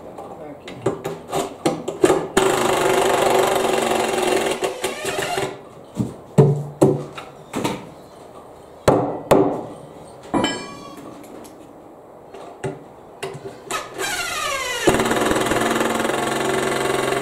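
Cordless nut driver running in two steady runs of about three seconds, with a short rising whine between them. Sharp knocks come between the runs. Its battery is starting to die.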